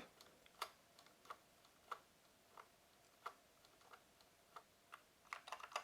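Near silence broken by faint, evenly spaced ticks, about three every two seconds, with a few soft knocks near the end.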